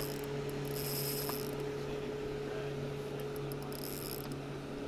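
Spinning reel working under load with a bass on the line: two short spells of whirring, clicking reel mechanism, about a second in and again about four seconds in, over a steady low hum.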